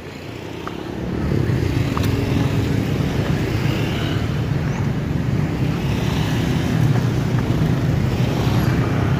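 A vehicle engine running with a low rumble, growing louder over the first second and a half and then holding steady.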